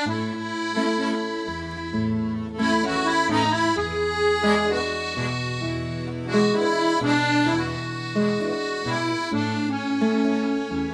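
Accordion playing a habanera's instrumental introduction, sustained chords over a moving bass line.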